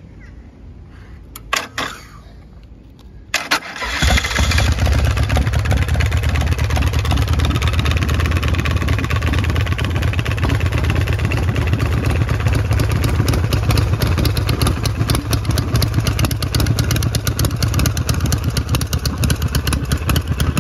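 Custom chopper's 113ci V-twin engine being started: a couple of clicks, a short burst of cranking about three seconds in, then the engine catches and idles loudly and steadily.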